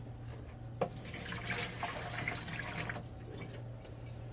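Water poured from a plastic cup into a small stainless-steel sink and running down the drain, as a leak test of a newly plumbed PVC drain. A light knock about a second in, then the pour for about two seconds before it fades.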